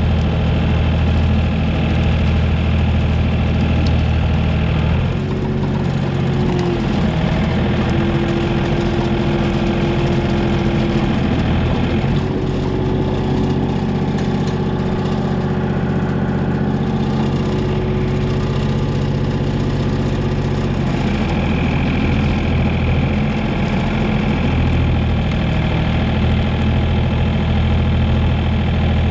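Komatsu PC28 mini excavator's diesel engine running steadily under work, its note changing about five seconds in and again about twenty-one seconds in. A thin, steady whine rides over the engine through the middle stretch.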